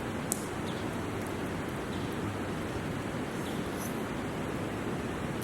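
Steady rushing of a flowing river, with a few faint, short high ticks over it.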